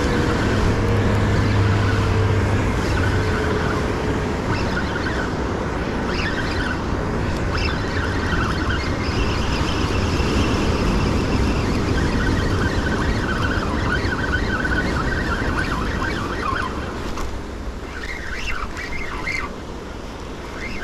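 Ocean surf breaking on a rocky shore: a steady, loud wash of waves.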